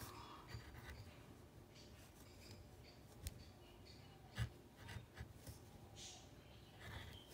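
Marker writing figures on paper: faint, short scratching strokes of the tip, with two louder ticks about three and four and a half seconds in.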